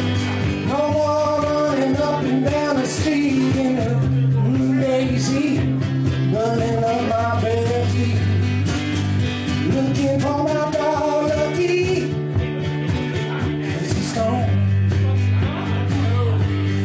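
Live guitar music through a PA, an instrumental break in a blues-country song: held bass notes with a wavering, bending melody line above them that comes in twice.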